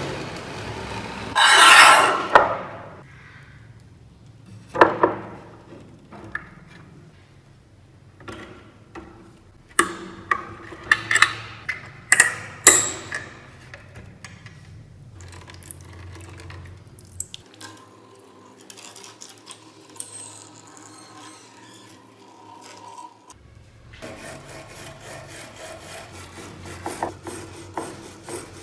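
Handling noises from rusty antique scissors and tools in a plastic tray: a scraping shuffle at the start, then scattered sharp metal clicks and knocks. About 24 s in, a fast, repeated scrubbing starts as the rust-blackened scissor blades are scrubbed wet with a hand tool.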